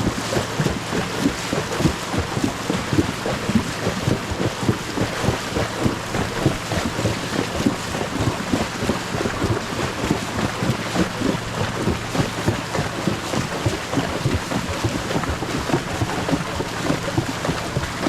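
Wind buffeting the microphone over a steady run of a ridden horse's footfalls.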